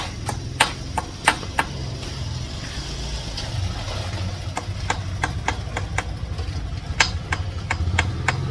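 Irregular sharp metallic clicks and clinks of hand tools and parts being handled while fitting an engine's timing gear and belt, over a steady low rumble.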